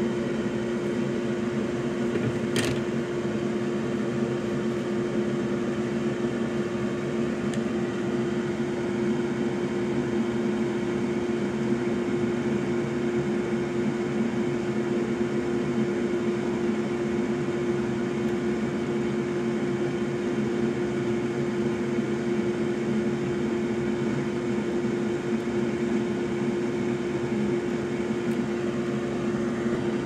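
Steady electric fan hum with a constant tone over a noisy whir, and a single sharp click about two and a half seconds in.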